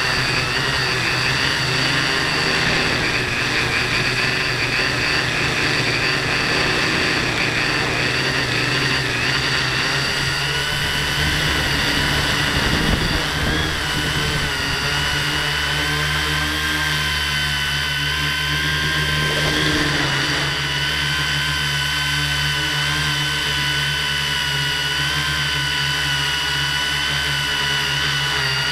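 FPV drone's electric motors and propellers whining, heard from the onboard camera. The pitch wavers for the first third or so, then settles into a steady whine as the drone hangs low over the grass.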